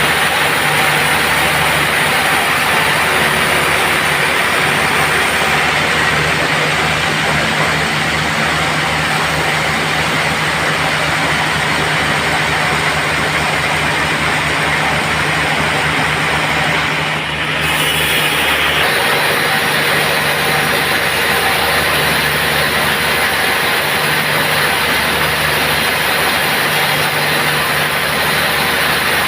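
Band sawmill running with a steady, loud machine hum. Its sound changes abruptly about seventeen seconds in.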